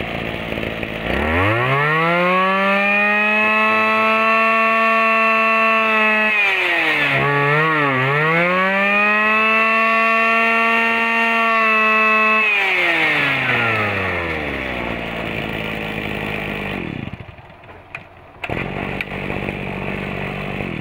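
Kawasaki TA33 33cc two-stroke brush cutter engine revved from idle to full throttle and held there, blipped a few times, held wide open again, then let fall back to idle.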